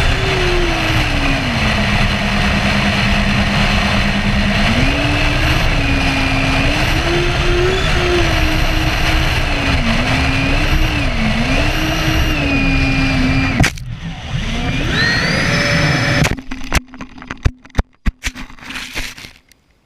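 Twin electric ducted fans of a Freewing A-10 RC jet whining, their pitch rising and falling with the throttle over a heavy low rush of wind. A sharp knock comes about 14 seconds in, and the fan whine winds down. The last few seconds hold scattered knocks and rustles that die away.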